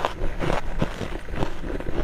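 Freezer frost being chewed: crisp, irregular crunches, about three a second.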